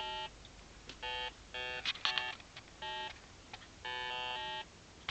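Electronic candle's flicker circuit heard as a buzzy square-wave tone that switches on and off in short, irregular bursts, its pitch shifting within some bursts. The uneven gating comes from the generator's changing pulse-pause ratio, which is what makes the LED flicker.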